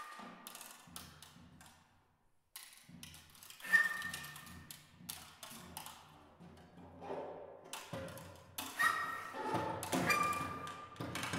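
Sparse improvised percussion on a small drum kit: scattered taps and strikes, some leaving a ringing metallic tone, echoing in a stone church. A short pause about two seconds in, a single loud ringing strike near four seconds, then busier playing with several loud hits toward the end.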